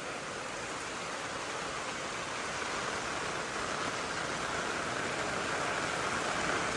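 Rushing rainwater in a steady hiss that grows a little louder over the seconds.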